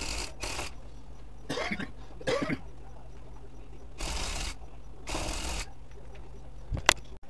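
Handheld electric rug-tufting gun running in short bursts of about half a second as it punches yarn into the backing cloth: two at the start, two more about four and five seconds in. Two rougher sounds come near two seconds in, and a sharp click near the end, over a steady low hum.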